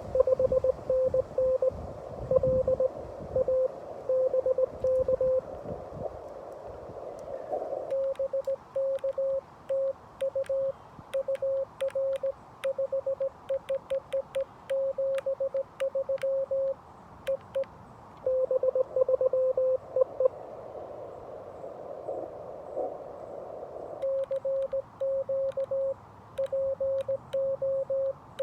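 Morse code on a Xiegu G90 HF radio at about 17 words per minute. Stretches of a received CW signal beep over the receiver's band hiss, with a few seconds of plain hiss between them. Other stretches are the operator's own sending: a slightly higher, clean sidetone beeping, with the clicks of the paddle under the keying.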